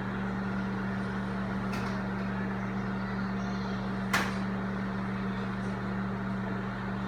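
Microwave oven running on low power: a steady electrical hum, with one sharp click about four seconds in.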